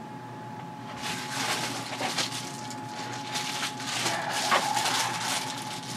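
Mailing envelope being handled and torn open: irregular crinkling and rustling with small crackles, starting about a second in and fading near the end.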